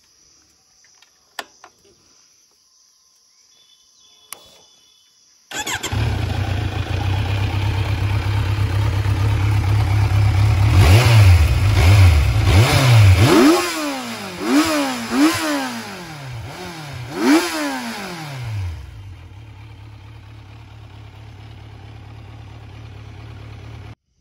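Kawasaki 900 naked bike's inline-four engine through its stock exhaust: it comes in abruptly about five seconds in at idle, runs a little higher, then is blipped four times, each rev rising and falling quickly, before settling back to a steady idle that cuts off abruptly near the end.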